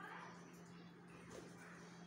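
Near silence: a steady low hum, with a few faint budgerigar chirps.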